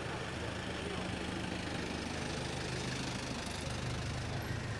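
A vehicle engine idling close by amid steady street noise, its low hum shifting in pitch about two seconds in.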